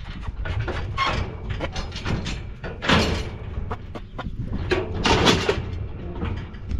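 Steel cattle chute panels rattling and clanking as Hereford calves shift about inside, with repeated knocks and two louder clangs about three and five seconds in.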